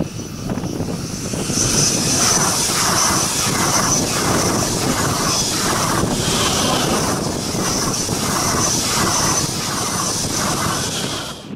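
Diesel-hauled passenger train of double-deck coaches passing close by, led by a BR 245 diesel locomotive. The engine drone and wheels on rails build up about a second and a half in, then hold steady. Over them run a steady high whine and a regular clatter of wheels, about two beats a second.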